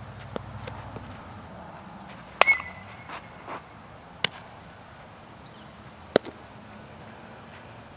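Sharp, isolated knocks of a softball drill, a ball striking bat or glove. The loudest comes about two and a half seconds in and carries a brief metallic ring, and a few smaller knocks follow later.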